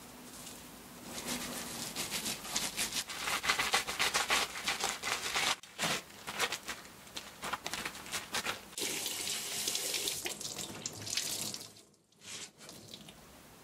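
Water from a kitchen faucet splashes into a stainless steel sink, with uneven splashing and squelching as a sisal-fibre towel is rinsed and squeezed out under the stream. The water stops shortly before the end, followed by one last brief splash.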